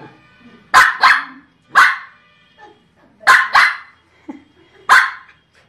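Small white spitz-type dog barking: six short, loud barks, two of them in quick pairs, with a faint yelp between.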